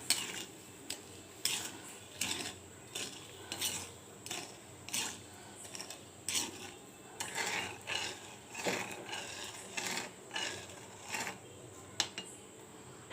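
A spoon stirring and scraping sugar and a little water around a hot kadai, in repeated uneven strokes.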